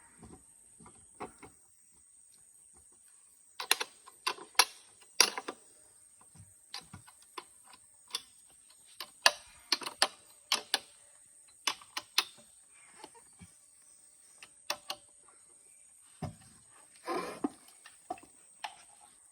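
Scattered sharp knocks and clacks, several in quick succession about four to five seconds in and again around nine to twelve seconds, over a steady high insect drone.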